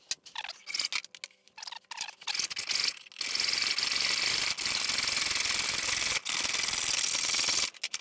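Hacksaw sawing through light-gauge steel unistrut channel: fast, steady strokes from about three seconds in, with a few brief pauses. Before the sawing there are lighter, scattered knocks and scrapes.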